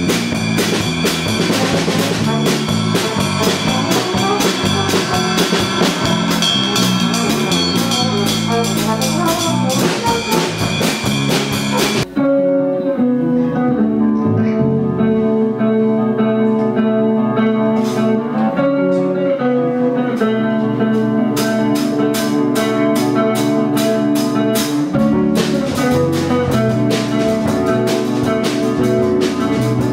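Instrumental jazz band music: drum kit, electric bass and electric guitar playing together. About twelve seconds in, the drums cut out abruptly, leaving held chords and bass notes, and the drums build back in over the last several seconds.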